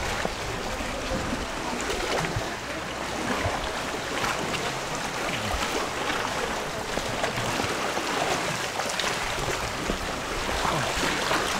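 Water lapping and sloshing around inflatable canoes being paddled through calm water, with faint paddle dips.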